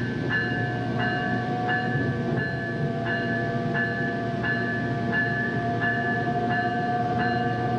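Bell of a South Shore Line bilevel electric railcar ringing steadily, about one and a half strokes a second, as the train runs down the middle of a street. Under it are the steady rumble of the moving train and a faint steady whine.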